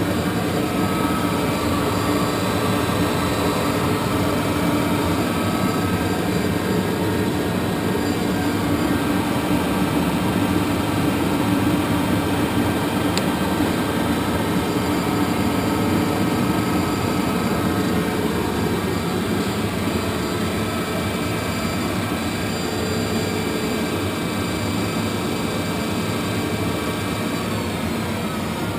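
Monarch 10EE lathe running steadily under power: a constant mechanical hum with several steady whining tones, easing slightly in level in the second half.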